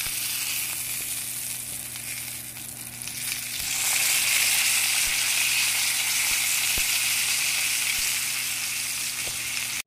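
A New York strip steak sizzling as it sears in hot beef tallow in a cast iron skillet. The sizzle grows louder and brighter about three and a half seconds in.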